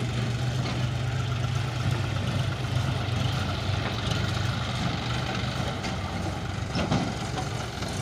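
John Deere 5045 D tractor's three-cylinder diesel engine running steadily as it moves a loaded trolley, with a short knock about seven seconds in.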